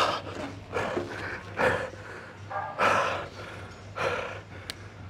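A man breathing hard and gasping, heavy noisy breaths about once a second, as he recovers from a hack squat set taken to failure.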